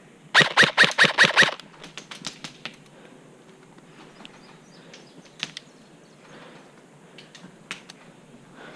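Airsoft rifle firing a rapid string of about seven shots, followed by scattered fainter single cracks and clicks of further shots or BB hits.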